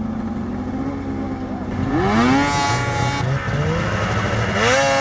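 Racing snowmobile engines running at high revs: a steady drone, then the pitch climbs sharply about two seconds in and again near the end as the throttle is opened.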